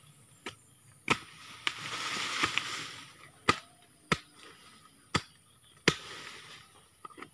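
A hand tool chopping into soil and tree roots while a small tree is dug out, with about eight sharp, irregularly spaced strikes. Loose earth scrapes and rustles for a second or so between the early strikes.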